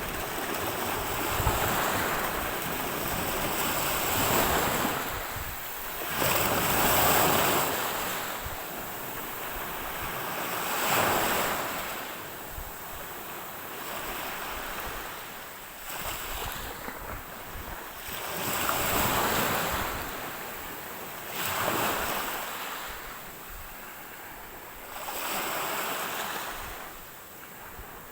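Ocean waves breaking and washing up the shore. The rushing surges and fades again every three to four seconds.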